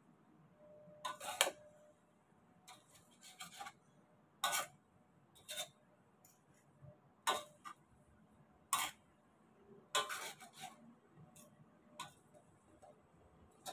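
Metal tongs clacking and scraping against a wok while stir-fried rice noodles and leafy greens are tossed, in irregular sharp knocks about once a second.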